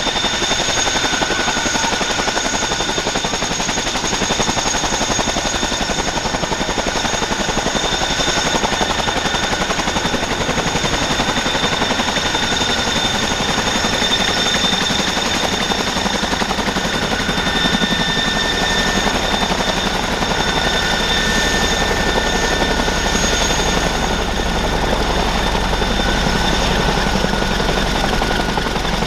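Boeing CH-47F Chinook tandem-rotor helicopter running on the ground: rapid, steady rotor chop with a steady high whine from its twin turboshaft engines.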